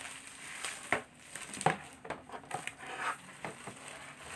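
Hard plastic chopping board and its plastic hanging ring being handled: three sharp plastic clicks and knocks over a light rustle of handling.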